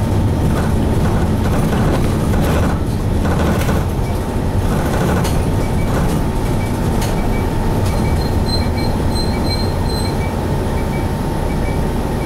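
Cabin running noise of a 1997 Hino Blue Ribbon HT city bus on the move, its M10U diesel engine droning under way, with light knocks and rattles in the first few seconds. From about eight seconds in, a short high beep repeats two or three times a second.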